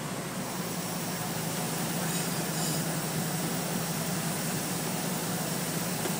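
Heavy diesel construction machinery running steadily, a constant low drone under a wash of even noise.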